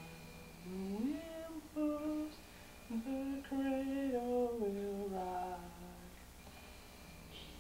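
A person humming a slow, wordless tune: held notes sliding up and down, starting about a second in and stopping a little before the end.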